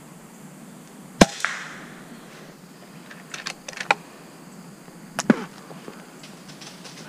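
A .25-calibre Umarex Origin PCP air rifle fires once, about a second in: a sharp crack with a short fading tail, followed a moment later by a fainter crack. The shot that drops a squirrel. Several lighter clicks and knocks follow over the next few seconds.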